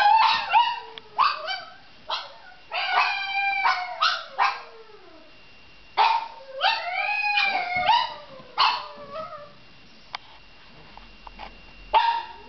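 Small dog howling: a string of howls, each starting sharply and sliding down in pitch, in bouts broken by pauses, the longest about two seconds.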